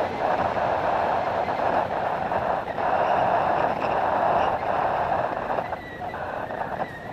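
Steady rushing road noise in a road tunnel, heard from a moving bicycle. It eases off about six seconds in, at the tunnel exit.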